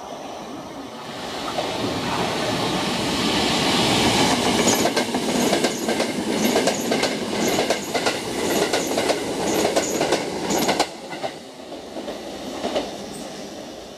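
Electric passenger train passing through the station at speed without stopping. Its rumble builds over the first few seconds, then comes a rapid clickety-clack of wheels over rail joints, which cuts off suddenly about eleven seconds in.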